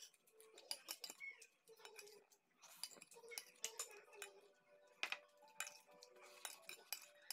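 Faint, scattered light clicks and clinks of fingers picking rice off a ceramic plate while eating by hand.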